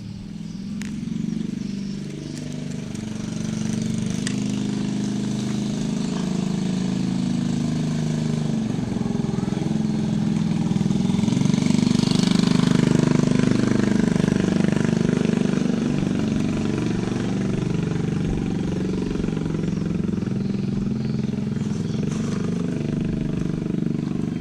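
An engine running steadily with a low hum, growing louder around the middle and easing off again.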